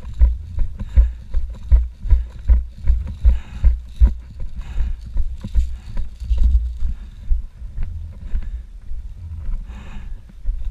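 Regular low thumps, about two and a half a second, like running footsteps jolting a body-worn microphone; after about six seconds they turn softer and less regular.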